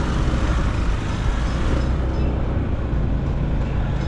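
Steady low rumble of engine and road noise from a motorcycle riding through city traffic.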